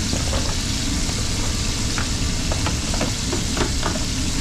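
Pimento peppers and onion sizzling as they fry in coconut oil in a pot, with a handful of short clicks from stirring against the pot. A steady low rumble runs underneath.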